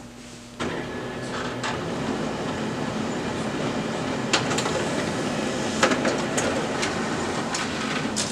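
HP LaserJet P3005 laser printer starting up about half a second in and running steadily as it feeds and prints a supply status page, with a few sharp clicks along the way.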